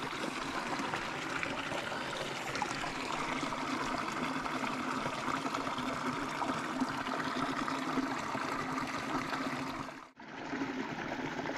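Water poured from a small cup into the filler opening of a hydration bladder, over the steady running of a shallow stream. The sound drops out briefly about ten seconds in.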